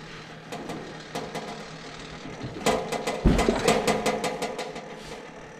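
A small motor running steadily, with a dense run of clicks and a low knock about three seconds in.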